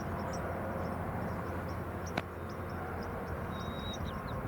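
Steady low rumble of outdoor background noise, with faint, short high chirps scattered through it and a single sharp click about two seconds in.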